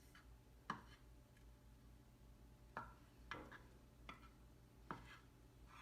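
A few soft, sharp taps of a spatula against a frying pan, spaced a second or two apart, over near silence.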